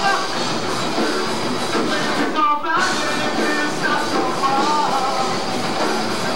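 Live rock band playing loud: electric guitar, bass and drums with a singer, picked up by a camcorder's built-in microphone. The sound briefly thins out about two and a half seconds in.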